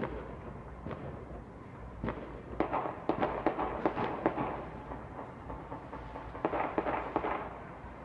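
Rifle and handgun shots mixed with fireworks: scattered single reports, then rapid volleys of pops about two and a half seconds in and again about six and a half seconds in.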